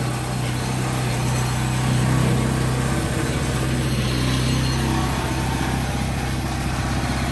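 Cat 308 mini excavator and its pile-driving gear running hard and steadily as a timber piling is driven down, a loud even mechanical hum.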